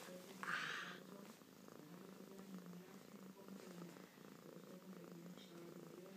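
Domestic cat purring steadily while being scratched under the chin, with a brief soft hiss about half a second in.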